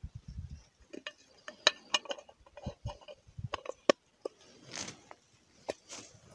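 Close handling noise from baiting a fishing hook with a worm and taking up the float rod: irregular small clicks and taps, a few dull thumps at the start, and two brief rustles of jacket or reeds near the end.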